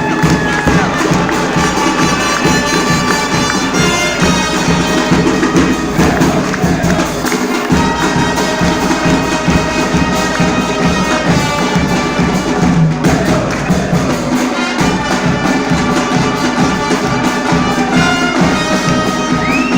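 A live band playing upbeat music with horns and a steady beat.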